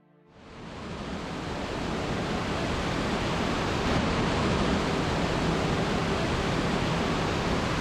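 Waterfall rushing over rocks: a steady noise of falling water that fades in over the first second and then holds.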